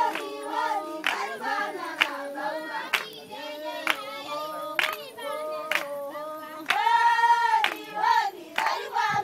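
A group of Samburu women singing a welcoming song together, with sharp handclaps about once a second. A single high voice holds a long note near the end.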